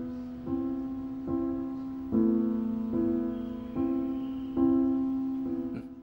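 Background piano music: a slow line of held notes, struck a little under once a second, each fading away before the next.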